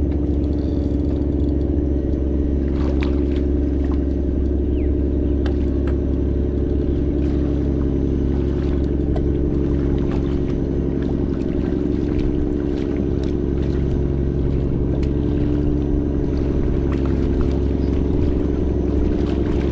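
A boat's engine running steadily at a constant speed, with scattered faint clicks over it.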